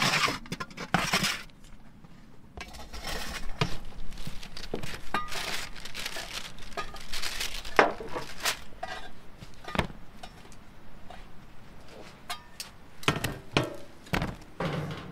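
Metal baking pans knocking and scraping on a wooden table while freshly baked round loaves are turned out of them, with irregular rustling between the knocks.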